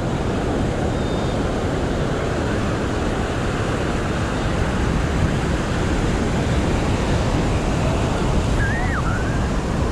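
Steady ocean surf washing on the beach, mixed with wind buffeting the microphone. Near the end a short, faint rising-and-falling whistle-like sound passes over it.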